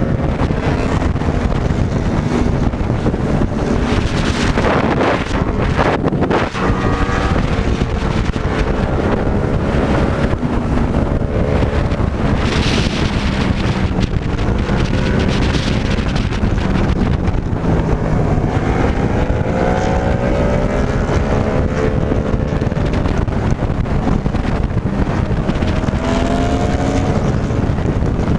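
Yamaha motorcycle engine running at road speed, its pitch rising and falling with the throttle, under heavy wind noise on the microphone.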